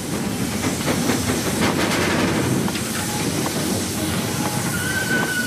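J94 austerity saddle-tank steam locomotive blowing off a heavy hiss of steam at low level, with irregular knocks and chuffs, as its heavy coal train stalls on greasy, muddy rails. A steady high tone comes in near the end.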